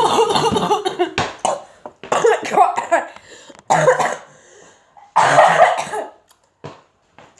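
A child coughing in several bouts, mixed with wordless vocal sounds.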